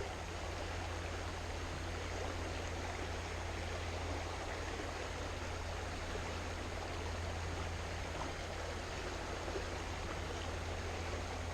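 Floodwater current flowing steadily, a constant rushing of moving water.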